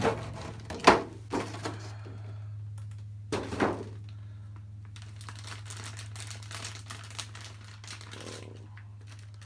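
Hard plastic parts of a PVC figure and its packaging being handled, with a few sharp knocks in the first four seconds, the loudest about a second in, then lighter quick clicking. A steady low hum lies underneath.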